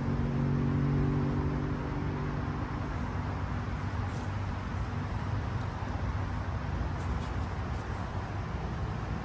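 Steady road-traffic noise, with a vehicle's low engine hum fading out over the first two or three seconds.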